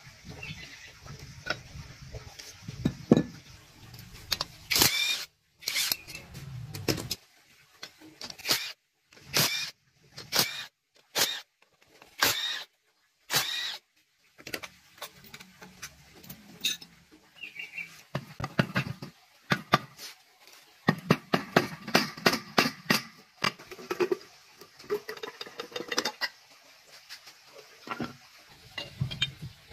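Hand tools clinking and knocking against metal compressor parts in irregular clusters of sharp taps, broken up by several short dead-silent gaps.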